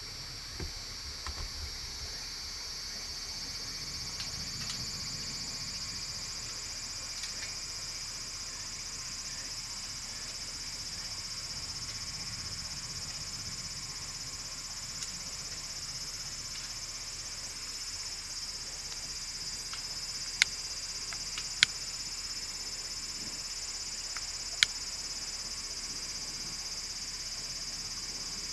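Steady, high-pitched chorus of summer insects in the surrounding forest, droning without a break. Three sharp clicks stand out in the last third.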